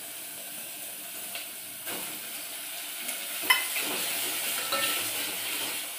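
Onion-tomato masala sizzling as it fries in a metal pot, stirred with a metal spoon, with a few clinks of the spoon against the pot, the sharpest about three and a half seconds in.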